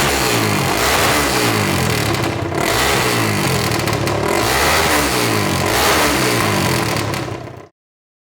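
Enduro motorcycle engine revving, its pitch rising and falling again and again, about every second and a half to two seconds; the sound cuts off suddenly near the end.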